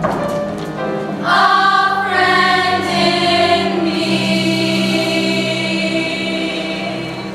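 Show choir singing a long held chord, swelling about a second in and slowly fading near the end.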